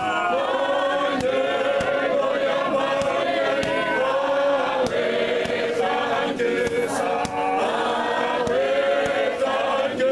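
Male choir singing a cappella in full harmony, with sustained held notes and sharp hand claps through the singing.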